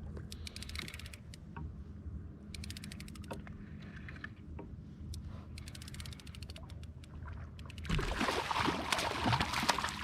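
Fishing reel clicking in several short bursts of rapid ticks as line is wound in. From about eight seconds in there is loud splashing, a hooked kahawai thrashing at the surface beside the kayak.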